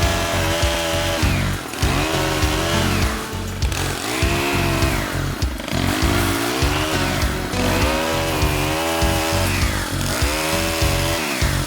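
Stihl KM90R Kombi two-stroke power head driving the pole pruner's saw chain. It is revved up and let back down again and again, about every two seconds, the engine pitch climbing, holding briefly, then falling.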